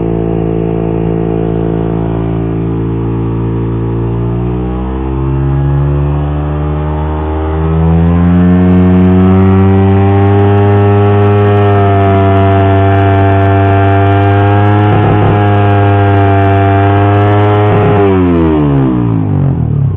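Suzuki GSX-R150 single-cylinder four-stroke engine revving through an R9 Misano aftermarket racing exhaust. It holds around 7000 rpm, climbs in two steps about five and eight seconds in, and is held louder near its 13,000 rpm rev limiter, where it stutters slightly. Near the end it drops back.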